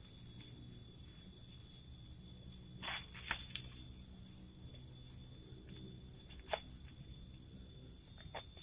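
A few sharp clacks or knocks: a quick cluster about three seconds in and a single one about six and a half seconds in, over a faint steady background with a thin high tone.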